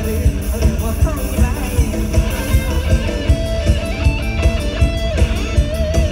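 Live Isan mor lam band music played loud through a concert PA: a steady drum beat under a melody line of held notes.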